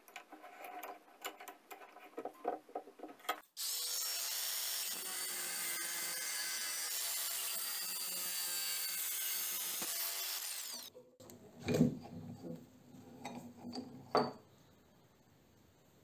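Small grinder with a cut-off disc cutting into the knuckle of a brass door hinge held in a bench vise: about seven seconds of steady, even cutting with a constant whine. Clicks of the hinge being clamped come before it, and a few sharp metal knocks from handling the hinge and vise follow after.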